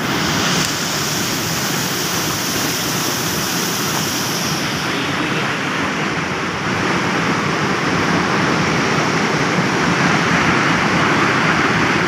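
Rushing white water of a rocky stream's rapids below a small waterfall: a loud, steady hiss of falling and churning water. The highest part of the hiss fades slightly about five seconds in.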